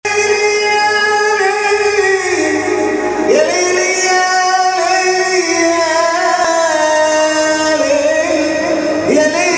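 Egyptian mawwal music: a melody of long held notes that slides upward into a new note about three seconds in and again near the end.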